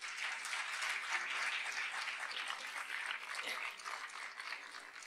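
Audience applauding, starting suddenly and easing off slightly near the end.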